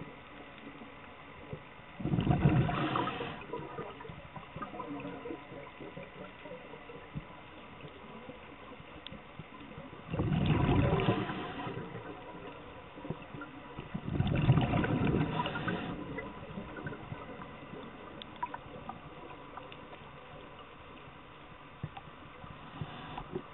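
Scuba diver's exhaled bubbles gurgling out of the regulator, recorded through the underwater camera housing: three bursts of about one and a half to two seconds each, about two, ten and fourteen seconds in, with faint steady background noise between.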